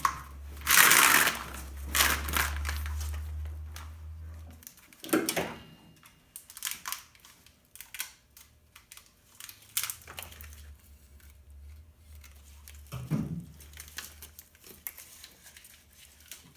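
Plastic split loom and electrical tape being cut and pulled off an engine wiring harness: irregular crinkling, crackling and tearing. A steady low hum sounds under it for the first few seconds and again later.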